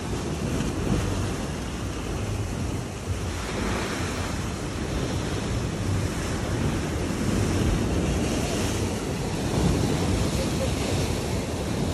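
Sea surf washing against the shore, mixed with wind rumbling on the microphone; the noise swells and eases.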